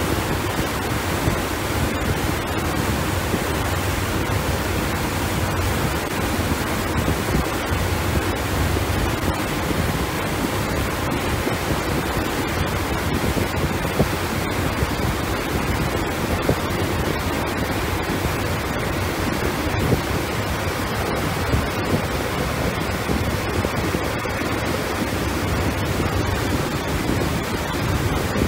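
Steady rushing noise of wind and water aboard a boat under way, with gusts buffeting the microphone.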